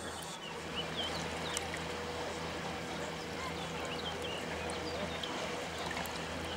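Shoreline ambience: an even wash of sea noise with a steady low engine hum under it, and faint short high chirps scattered throughout.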